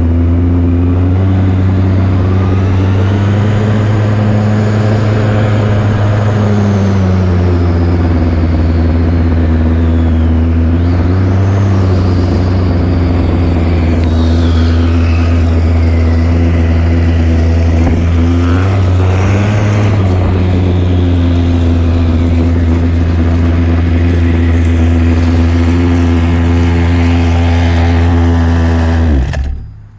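Small two-stroke string-trimmer engine powering a converted RC truck, running hard with its revs rising and falling as the truck is driven. The sound stops abruptly near the end.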